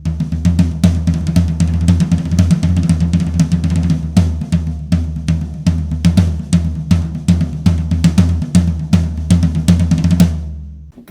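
Drum kit played in a busy groove with many rapid strikes over a deep, sustained low drum tone, its floor tom fitted with a Big Fat Snare Drum dampening pad. The playing stops about ten and a half seconds in.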